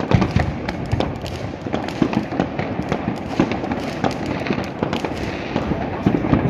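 Many fireworks and firecrackers going off across a city at once: a dense, continuous run of bangs, pops and crackles that rises sharply in loudness at the start and stays loud throughout.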